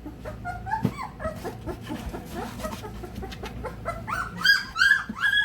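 Young XL American Bully puppies, about three weeks old, whining and squealing: faint scattered squeaks at first, then a quick run of loud, short, high cries in the last second and a half, with a few knocks in between.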